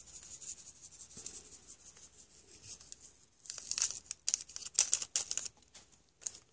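Small paper packet of stevia sweetener shaken over a dish, a crisp crinkling rustle in quick strokes that grows busier and louder about halfway through.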